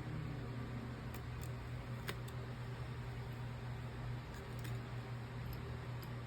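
Steady low electrical hum of a fan or bench machine, with a few faint, light clicks of small tools on phone parts, about six spread through.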